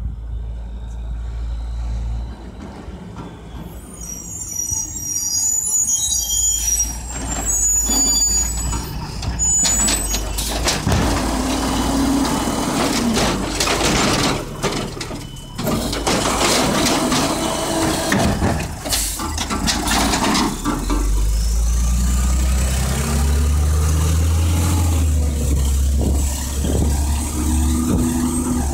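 Mack LE garbage truck with an Amrep automated side-loader pulling up, its air brakes giving high squeals and hisses. Its hydraulic arm then lifts and shakes a cart, with a run of bangs and clatter as the trash drops into the hopper. Near the end the diesel engine revs up as the truck pulls away past the microphone.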